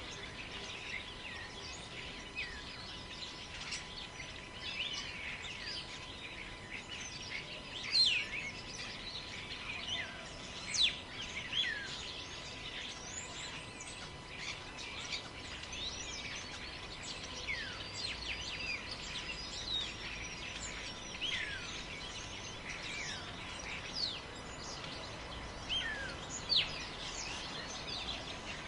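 Forest birds chirping and calling: many short, quick high notes from several birds, some sliding down and some up, over a faint steady background hiss and a faint steady tone.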